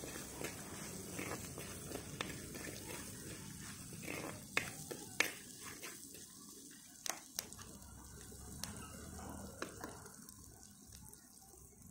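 Tempering of chillies, garlic and curry leaves sizzling and crackling in hot oil in a cooking pot, with a steel ladle clinking against the pot several times around the middle. The sizzle dies down in the second half.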